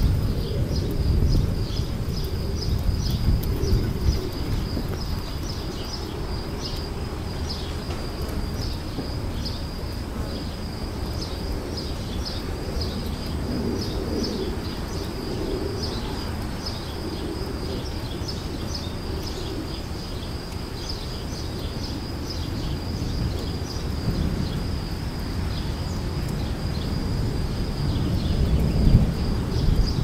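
Mountain-forest ambience: a steady high-pitched chirring, broken by many short, quick calls, over a low rumbling noise.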